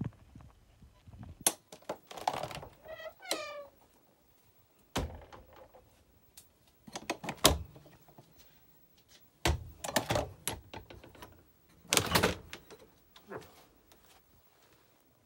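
Motorhome galley cabinet and refrigerator doors being opened and shut: a series of thunks and latch clicks, with a short squeak that falls in pitch about three seconds in.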